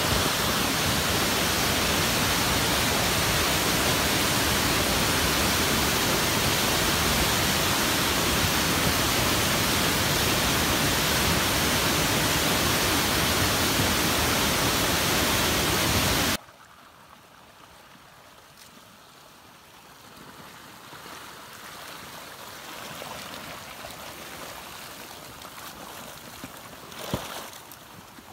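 Muddy flash flood carrying branches and debris, rushing loudly and steadily down a canyon channel. About two-thirds of the way through, the rush cuts off suddenly and gives way to a much fainter rush of water, with a single knock near the end.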